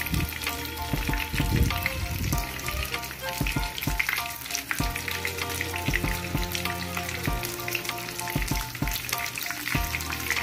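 Breadcrumb-coated chicken breast fillets shallow-frying in oil in a pan: a steady, dense crackling sizzle. Background music plays underneath.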